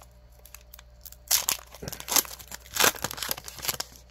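Foil Pokémon booster-pack wrapper crinkling and crumpling in the hands, a run of sharp crackles lasting about two and a half seconds.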